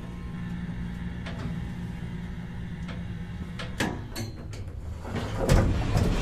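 Elevator car running with a steady low hum, then a series of clunks from about four seconds in and a louder sliding noise near the end as the car stops and the doors open.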